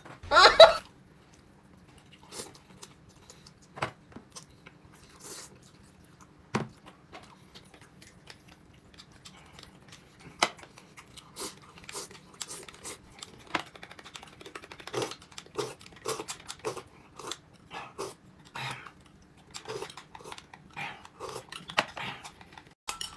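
Close-up eating sounds: irregular chewing and crunching with small mouth clicks, sparse at first and coming thicker and faster in the second half.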